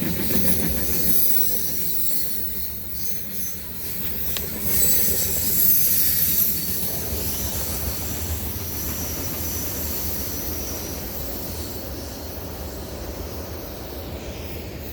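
CSX freight train cars rolling past: a steady rumble of steel wheels on the rails, with a high wheel squeal over it and a sharp click about four seconds in.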